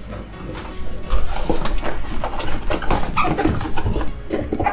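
Cardboard box flaps and a large paper sheet being handled as a box is opened: irregular rustling, scraping and squeaking cardboard, busiest after the first second.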